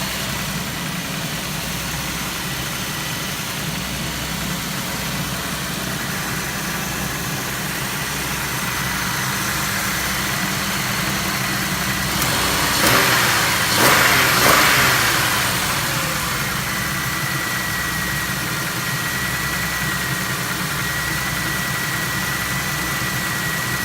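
2004 Chevy Venture's 3.4-litre V6 idling steadily while warming up after a heater hose replacement, with a brief louder rush of noise about halfway through.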